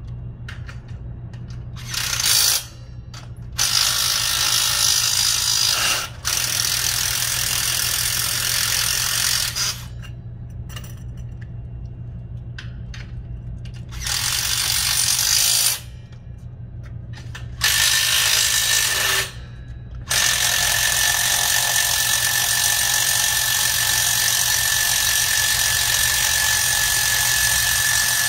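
Handheld power tool running in on-off bursts of one to four seconds on shopping-cart caster hardware, then one long run of about eight seconds near the end with a steady whine, over a constant low hum.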